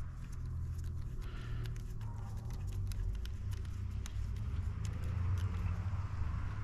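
Light clicks and ticks of small plastic parts and metal tools being handled while a radio-controlled truck's steering and suspension are reassembled, over a steady low hum.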